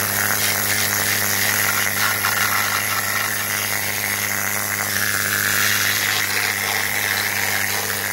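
Kobe pneumatic needle scaler running steadily, its needles hammering rust and scale off the rotten underside steel of a Jeep.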